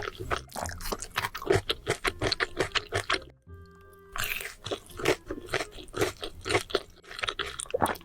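Close-miked mukbang eating sounds: rapid, crisp crunching and chewing of a mouthful, pausing briefly a little past three seconds in and then resuming. Soft background music runs underneath.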